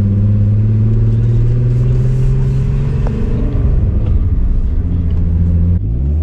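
Car engine running as the car drives off, its note climbing slowly. It turns rougher about three and a half seconds in, then changes abruptly near the end and rises again as the revs climb.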